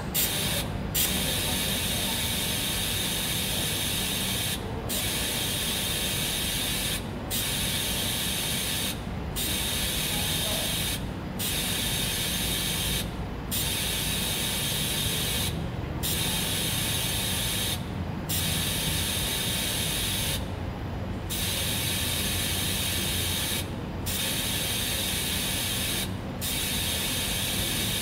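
TIG (gas tungsten arc) welding arc on a 316 stainless steel tube: a steady high-pitched hiss that starts just after the beginning and breaks off for a moment about every two seconds, over a low steady hum.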